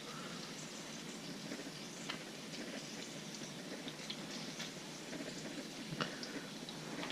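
Catfish fillet and whole bluegill frying in melted butter in a pan: a steady, faint sizzle with a few small pops.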